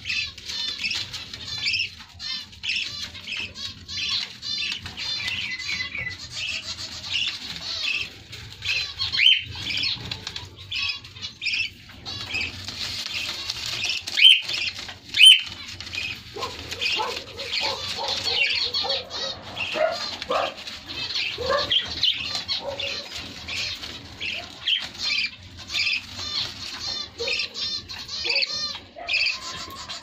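Budgerigar chicks chirping rapidly and almost without pause in high, thin begging calls, with wing flutters; lower calls join in around the middle.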